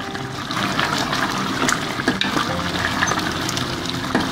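Watery chicken karahi gravy bubbling and sizzling in a pot with oil just added, as it is fried down, with a wooden spoon stirring through it and small scattered clicks.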